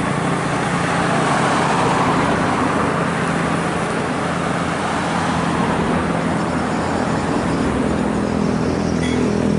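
A large intercity bus going by on the road, its engine running steadily under tyre and road noise that swells about two seconds in.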